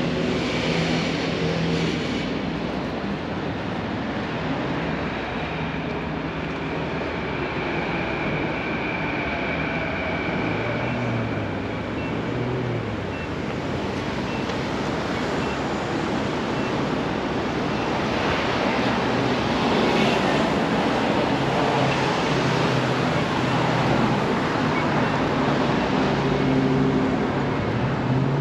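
Steady city street noise of traffic passing by, with the low hum of vehicle engines rising and falling. A faint high tick repeats about once a second for several seconds.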